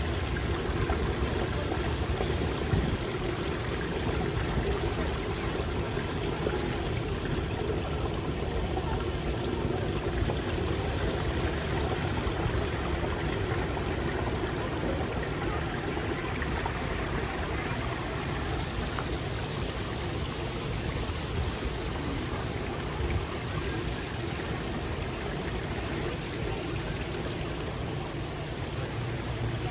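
Steady rushing outdoor noise with a low rumble underneath, unchanging throughout.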